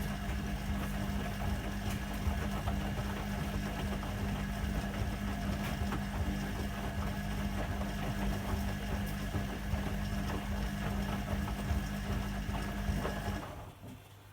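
Hoover Keymatic De Luxe 3243H washing machine running at the start of its wash cycle, a steady electric motor hum with mechanical churning. It cuts off suddenly near the end, leaving only a faint lower hum.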